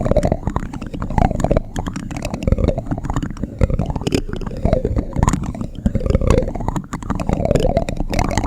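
Spoon ASMR: a spoon rubbed and scraped close against the microphone, making a rumbling, crackly texture with many small clicks, swelling in slow repeated strokes a little over once a second.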